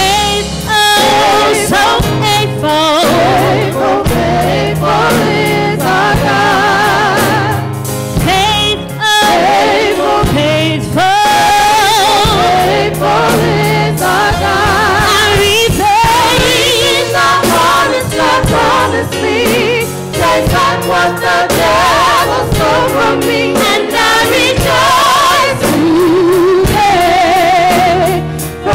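Gospel praise singing: several women's voices singing together into microphones, with wavering vibrato on held notes, over sustained low instrumental accompaniment.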